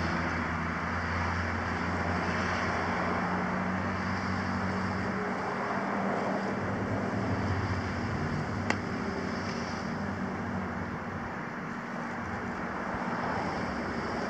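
Steady low rumble of a vehicle engine running, under outdoor background noise, with one sharp click about nine seconds in.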